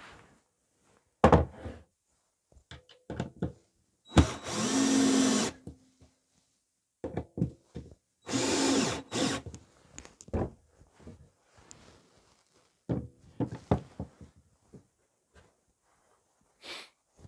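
Black+Decker cordless drill running in two bursts of about a second and a half each, driving into wood. Short knocks and clatter of tools and timber being handled come between the bursts.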